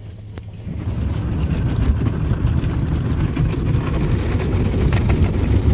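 RYKO SoftGloss MAXX rollover car wash running its spinning side brushes against the car, heard from inside the cabin. A low, churning rumble sets in about a second in and grows steadily louder as the brushes close in.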